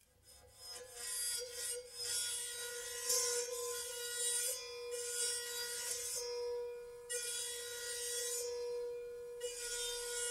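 Circular saw blade bowed at its edge with a viola bow, singing a steady high tone with overtones as the blade is driven into one of its resonant vibration modes. The raspy scrape of the bow hair comes and goes over about four strokes, and the tone rings on between them.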